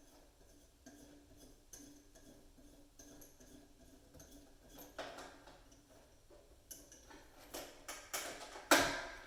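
Scattered light clicks and knocks from a faucet and its mounting hardware being handled and snugged down by hand, with a sharper knock near the end.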